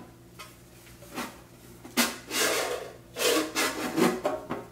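A small black cardboard box being handled and opened: several short bursts of rubbing and scraping.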